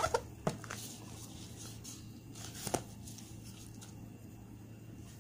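Hand mixing and squeezing soft, sticky bread dough in a plastic bowl: faint rustling, squelching handling noise, with a few short sharp sounds in the first half-second and another a little past halfway.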